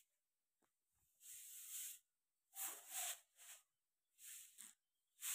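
Hand broom sweeping a bare cement floor: a series of short, hissy swishes, about one stroke a second.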